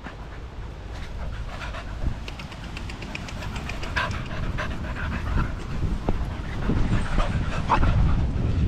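Small dogs panting close to the microphone in short, irregular breaths as they run about.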